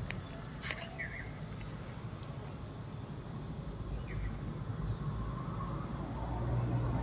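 Outdoor street ambience: steady background noise with a few short chirps and a long, thin, high whistle held for about three seconds in the middle. A low vehicle rumble builds toward the end.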